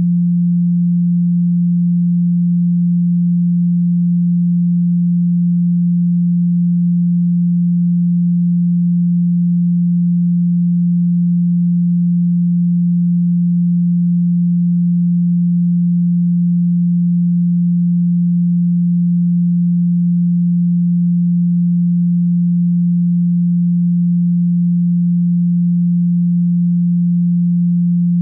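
A pure, steady 174 Hz sine tone, held at a constant pitch and level with no other sound: a Solfeggio-frequency drone.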